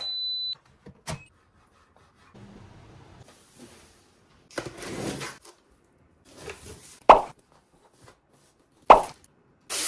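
A short high electronic beep from an electric pressure cooker as it is plugged in. Then a large cardboard box is handled and opened, with rubbing and scraping of cardboard and paper and a few sharp taps, the loudest two near the end.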